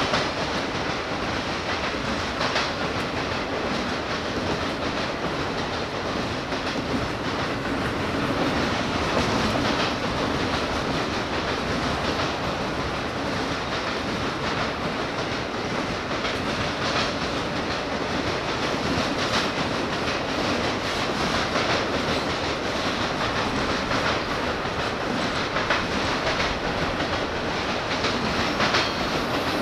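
Autorack freight cars rolling past: a steady rumble of steel wheels on rail, with scattered clacks as the wheels pass over the track.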